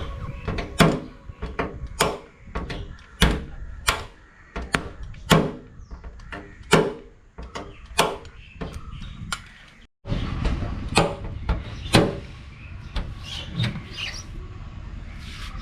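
Sharp metal knocks of dent-removal work on a car's steel body panels, a run of irregular strikes about two a second, with a short break about ten seconds in.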